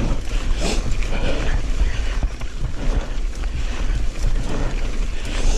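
Wind buffeting the microphone over the running noise of a mountain bike climbing a wet trail, in a steady low rumble with soft swells.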